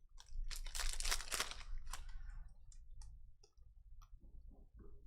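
Trading cards and their packaging being handled: a stretch of rustling and crinkling in the first couple of seconds, then scattered light clicks as cards are slid and flipped.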